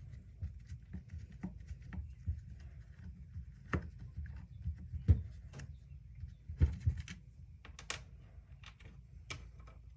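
Scattered light clicks and knocks of a screwdriver and the plastic housing of a cordless impact driver being handled during disassembly, with a few sharper knocks in the middle.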